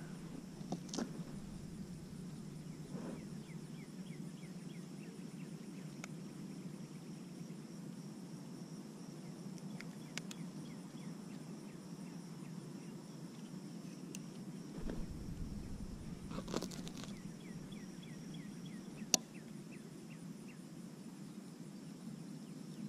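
Quiet outdoor ambience over open water: a steady low background hiss, faint high insect chirring, and a few scattered small clicks, the sharpest about nineteen seconds in.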